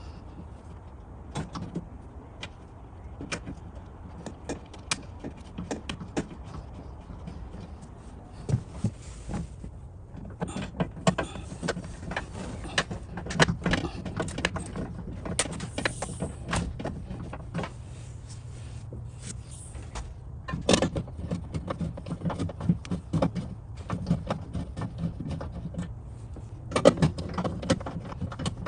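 Scattered clicks, knocks and rattles of hands and tools working on a car door's window glass and its fittings, over a low steady hum. The knocks grow busier about a third of the way in, with louder knocks near two-thirds and near the end.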